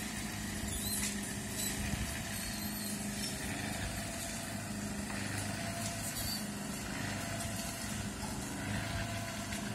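A machine's motor running steadily, a constant low hum with no change in speed.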